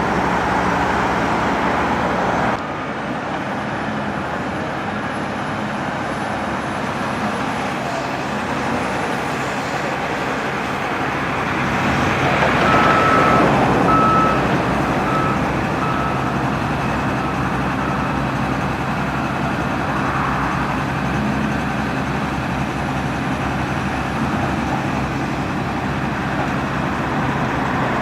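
Cat 924G wheel loader's diesel engine running under work, growing louder for a couple of seconds near the middle, while its backup alarm beeps several times, fading out.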